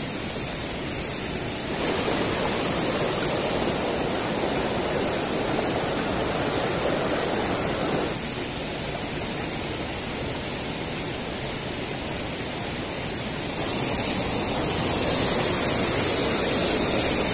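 Mountain stream rushing over rocks in rapids, a steady rush of water. It gets louder about two seconds in, eases slightly around eight seconds, and swells again near fourteen seconds.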